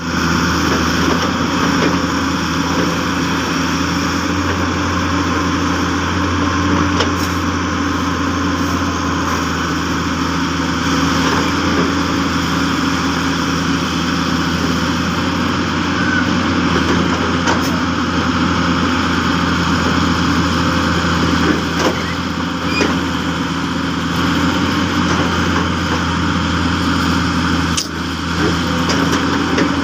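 Hyundai 200W-3 excavator's diesel engine running steadily, with a few sharp clicks or knocks and a brief drop in level near the end.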